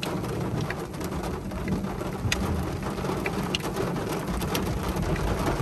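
Rain falling on a car's windshield and roof, heard from inside the car, with scattered sharp drop ticks on the glass over a steady low rumble.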